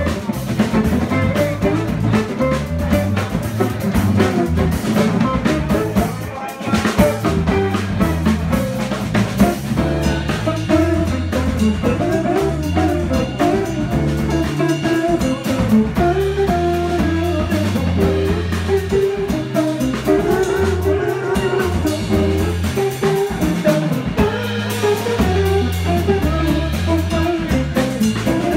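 A small jazz band playing live: electric guitar and acoustic guitar lines over a drum kit, with moving low notes underneath.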